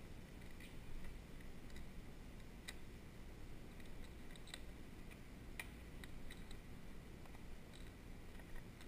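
Faint, irregular small clicks and taps from hands handling a small object, over a low steady rumble.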